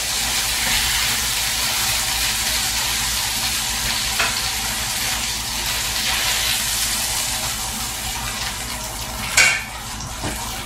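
Chicken breasts sizzling in olive oil and butter in a skillet over high heat, turned prosciutto side down to finish, with a wooden spatula moving them in the pan. A short knock sounds near the end.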